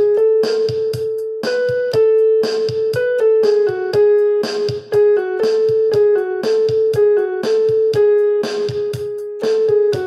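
Background music: a keyboard tune of struck piano-like notes in a steady, repeating rhythm over a held note.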